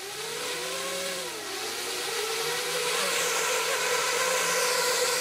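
FPV quadcopter's brushless motors and propellers whining at low throttle. The pitch rises and falls about a second in, then holds steady and grows slowly louder as the quad is lifted gently on the pad.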